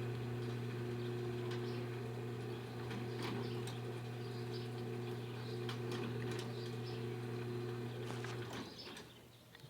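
Electric motor of an automatic gate operator running with a steady low hum and a few light clicks, stopping shortly before the end.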